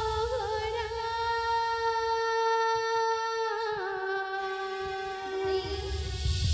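A singer holds one long sung note, wavering a little at first, then slides down to a slightly lower note about four seconds in and holds that.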